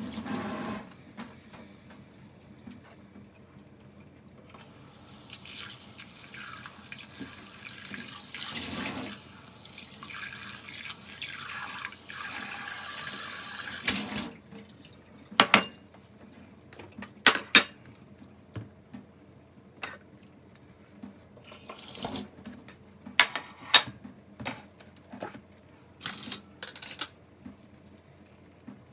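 Kitchen tap running into a stainless steel bowl while green onions are rinsed, stopping and starting. A little under halfway through, the water stops, and sharp scattered clinks and knocks follow as things are handled in and around the metal bowl.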